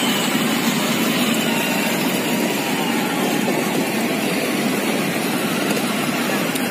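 Steady, even rumble of vehicle engines and traffic, with no distinct events standing out.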